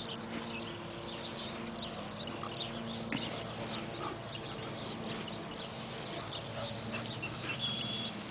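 Faint outdoor background: scattered short high chirps throughout, over a low steady hum, with a brief held high tone near the end.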